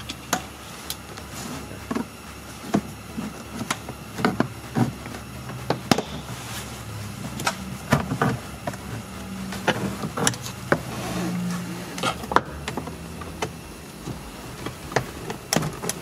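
Scattered clicks, taps and knocks of a plastic interior trim panel on a 2012 Dodge Journey being handled and pulled at around its clips, with the odd tool knock. A low hum comes and goes in the middle.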